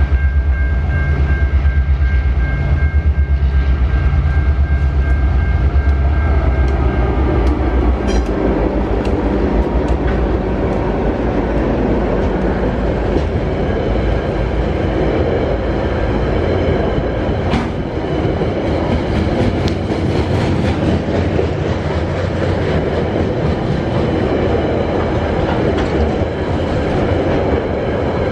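TasRail diesel locomotives 2054 and 2051 passing close by with a deep engine drone. About eight seconds in, the drone gives way to coal hopper wagons rolling past, their wheels clicking over the rail joints.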